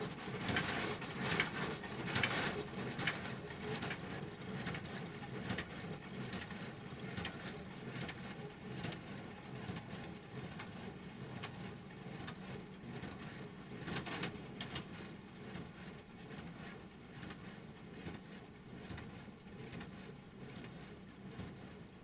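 Tractor and International small square baler running in a hayfield, a steady low engine hum with irregular clicks and knocks from the baler, getting fainter as they pull away.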